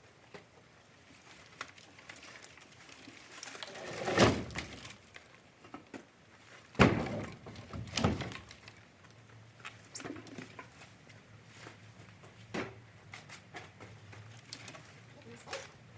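Thuds of firewood pieces being thrown onto a woodpile: three loud ones about four, seven and eight seconds in, with lighter knocks between.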